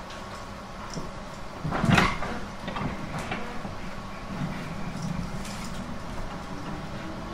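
719-series electric train standing with a steady low hum; a sliding passenger door bangs shut about two seconds in, followed by a few lighter knocks, and near the end a motor tone begins rising in pitch as the train starts to pull away.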